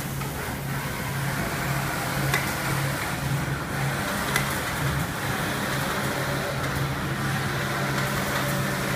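Steady low machinery hum under a continuous workshop din, with a couple of short sharp clicks about two and four seconds in.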